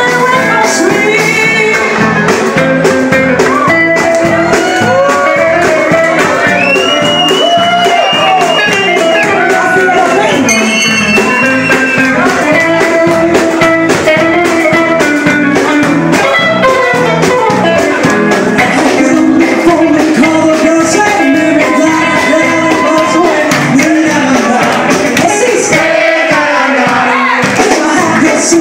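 Live band playing loudly, picked up on a phone's microphone: saxophone and a singing voice over drums.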